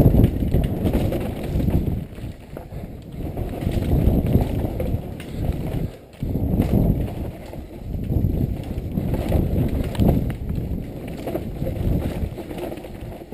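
Downhill mountain bike ridden fast over a dirt and rocky trail: tyres rumbling over the ground with scattered knocks and rattles from bumps, and wind buffeting the helmet-mounted microphone. The rumble swells and fades with the terrain and drops out briefly about halfway through.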